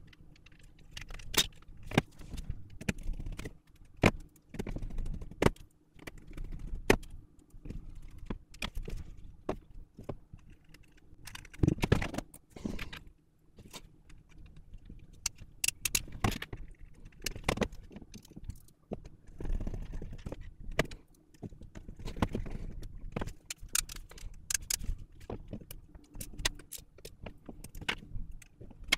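Xbox Elite Series 2 controller parts being handled and fitted together on a bench: irregular clicks, taps and small plastic-and-metal clatter.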